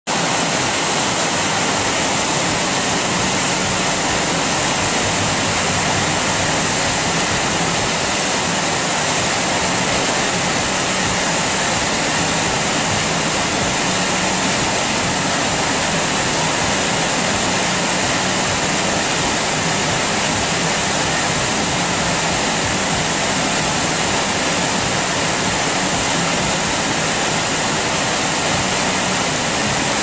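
A creek in flood, brown water rushing over rocks in whitewater rapids: a loud, steady rush of water that does not let up.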